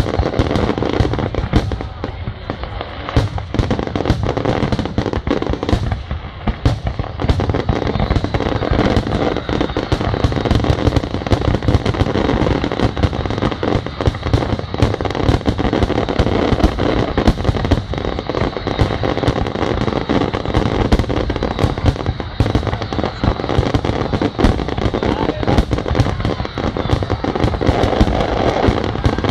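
Fireworks display going off in a rapid, continuous barrage, with many bangs and crackles a second.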